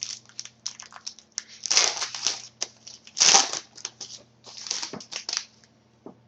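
A trading card pack's wrapper being torn open and crinkled, in a run of irregular crackling bursts that are loudest about two and three seconds in.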